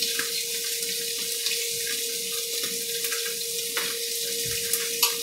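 Snapper fillets frying in butter and olive oil in a frying pan, a steady high sizzle, with a steady low hum underneath.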